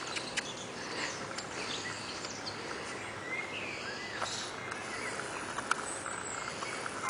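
Garden ambience with small birds chirping and calling in short gliding phrases over a steady outdoor hiss, and a couple of sharp clicks.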